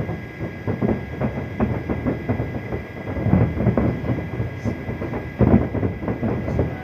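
Fireworks exploding in the distance: a rapid, irregular string of bangs and pops, with a louder bang about five and a half seconds in.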